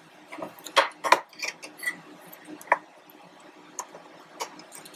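Irregular sharp clicks and light knocks, about eight of them, from the metal and plastic X-axis carriage assembly of an Epilog Fusion M2 laser engraver as it is gripped and tilted by hand.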